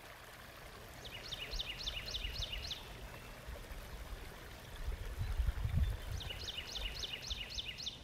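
A songbird sings two phrases, each a quick run of about seven down-slurred whistled notes, over a steady background hiss with low rumbles near the middle.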